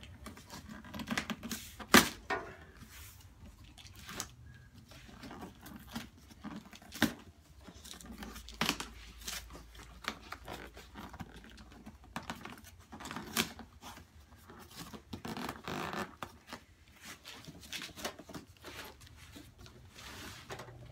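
Cardboard box being torn and pulled open by hand: rustling and scraping of cardboard, with scattered sharp snaps and knocks as the parts inside shift. The loudest snap comes about two seconds in.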